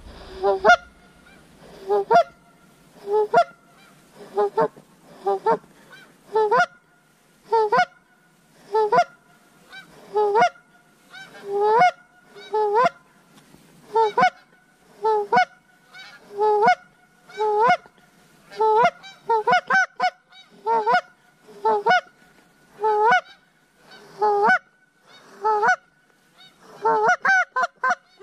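Goose honks repeating about once a second, each rising in pitch, with calls overlapping more densely near the end.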